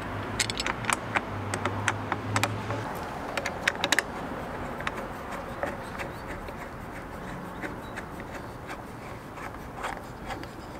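Windshield mounting bracket parts being handled and fitted by hand against the base plate: a run of sharp clicks and light knocks, thick in the first four seconds and sparser after. A low steady hum sounds under them and stops about three seconds in.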